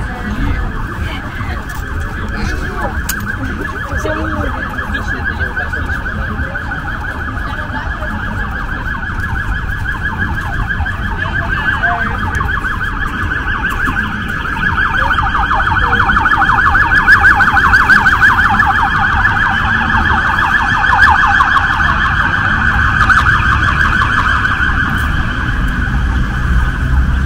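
Cicadas buzzing: a steady, high, rapidly pulsing drone that swells louder about halfway through, over the low rumble of street traffic.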